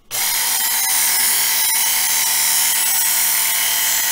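Work Sharp belt knife sharpener running at speed, its narrow abrasive belt grinding the edge of a steel kitchen knife and throwing sparks: a loud, steady, high-pitched grinding hiss over the motor's whine.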